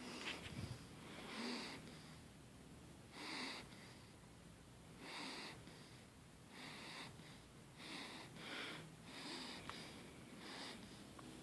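Soft snoring: short, hissing breaths with light snorts, repeating every one to two seconds.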